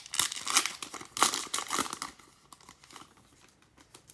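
Foil trading-card pack being torn open and crinkled by hand, loud for about two seconds, then dying down to faint rustling as the cards come out.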